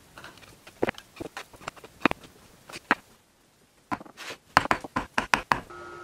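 Irregular sharp taps and clicks of hand tools being set down and worked against a hardwood block on a workbench, coming in a quick cluster in the second half. A steady hum starts abruptly near the end.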